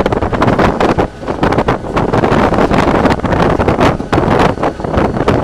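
Wind buffeting the microphone in the cab of a moving EMD SD40-2 diesel locomotive, in uneven gusts over the locomotive's steady running noise.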